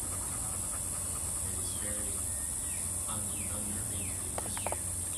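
Birds chirping in short falling calls every half second or so, over a steady high-pitched insect drone.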